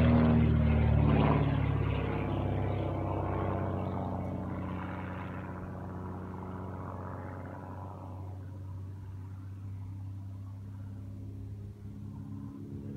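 Saab 91B Safir's six-cylinder Lycoming piston engine and propeller droning overhead. It is loud at first, its note sliding lower over the first couple of seconds, then fades steadily as the plane draws away, staying faint for the last few seconds.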